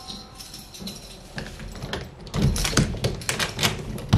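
Rapid, irregular clicking and tapping, sparse at first and then a dense run of quick clicks from about halfway through.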